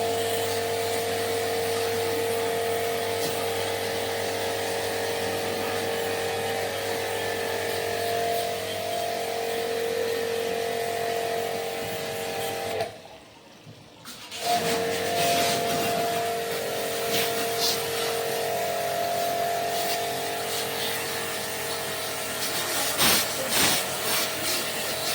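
Steady electric buzz of a running motor. It drops out for about a second and a half about halfway through, then returns, with a few clicks and knocks near the end.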